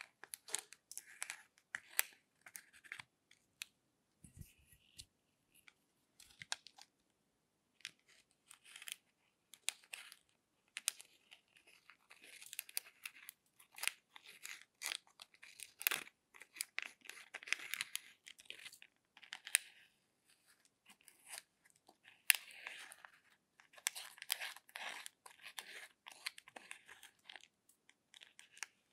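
Small stick scraping and digging pressed glitter eyeshadow out of the pans of a makeup palette: faint, dry, irregular scratching with sharp clicks, in short spells with brief pauses between them.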